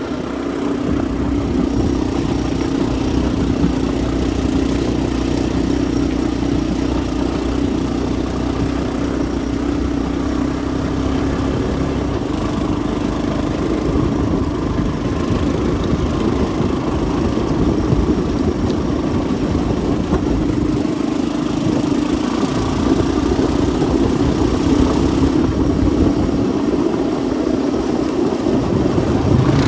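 An engine running at a steady, even pitch.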